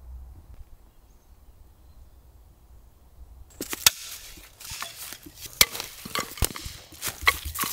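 Boots walking through dry leaf litter and fallen sticks on a woodland floor, with leaves crunching and twigs cracking and snapping underfoot. The crackle starts about three and a half seconds in; before that there is only a faint low rumble.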